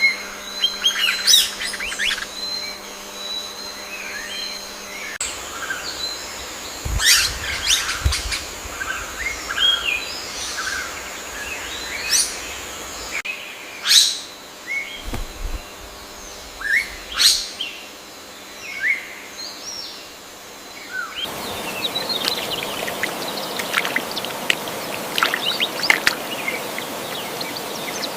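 Birds chirping and calling, many short quick notes overlapping. The background changes abruptly a few times, as between separate recordings.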